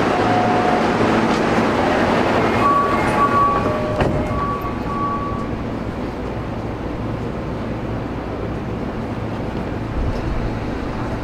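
Interior of a Toei 10-300 series subway car: the running noise dies away over the first few seconds as the train comes to a stop, with a few short electronic tones, then the steady hum of the standing car. A low thump comes near the end.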